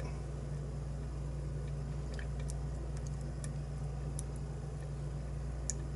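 Faint, scattered light clicks of a steel lock pick (a Sparrows 'nub' pick) working the pins inside a pin-tumbler lock, a few ticks spread over the seconds, over a steady low hum.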